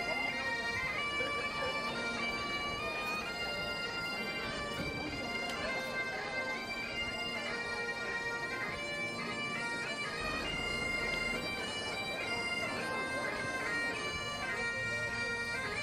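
Bagpipes playing a tune, the melody stepping between notes over steady drones.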